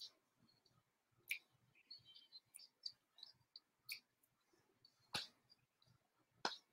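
Near silence broken by faint, sharp clicks that come fairly evenly, about one every second and a bit.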